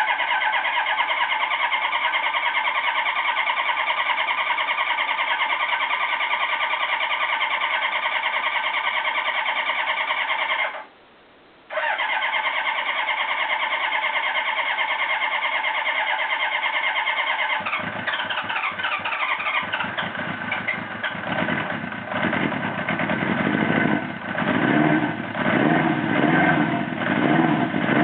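Honda CB900 Custom's inline-four engine being cranked on its electric starter with the choke on, in two long spells with a short pause between. Near the end of the second spell it catches and runs, its revs rising and falling unevenly, just after the carburettors have been cleaned to cure two dead cylinders.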